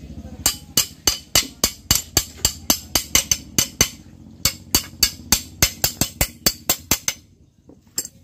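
Sharp metallic clicks from a hand tool working the die-mounting hardware of a chainlink fencing machine, evenly spaced at about three to four a second, in two runs with a short break near the middle.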